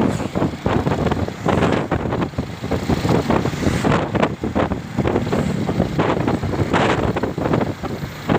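Wind buffeting the microphone in uneven gusts over the running engine of a motorcycle on the move.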